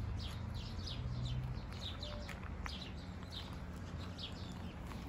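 A small bird singing a quick series of short, high, downward-sliding chirps, two or three a second, over a low background rumble.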